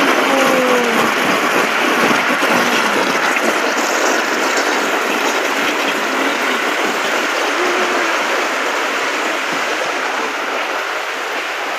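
Many jets of an outdoor fountain splashing steadily into the fountain basin, giving a loud, even rush of falling water.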